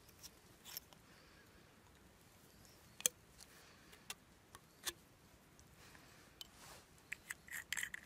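Plastic garden-hose connector being handled and fitted onto a hose: faint scattered plastic clicks, a sharper click about three seconds in, and a quick run of small clicks and squeaks near the end.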